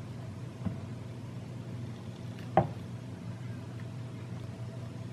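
Two light knocks as a scope mount is pressed and seated onto the top of an air pistol, a faint one under a second in and a sharper one about two and a half seconds in, over a steady low hum.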